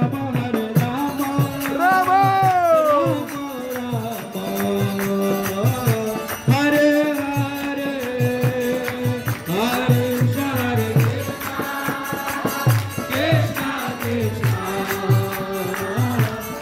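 Devotional kirtan: a group singing a chant with sliding melodic lines over a steady rhythmic drum beat and jingling hand percussion.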